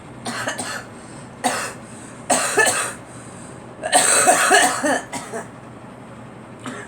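A girl coughing in a run of separate bursts. The loudest and longest cough, about a second long, comes about four seconds in, and a faint last one comes near the end.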